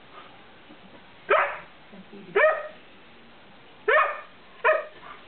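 Dog giving four short play barks, roughly a second apart, while wrestling with another dog.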